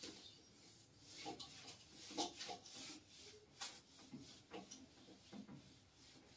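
Cloth wiping marker writing off a whiteboard: faint, irregular rubbing strokes.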